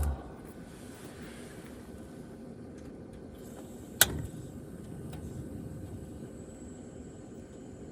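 A single sharp click or knock about four seconds in, over a faint, steady background noise.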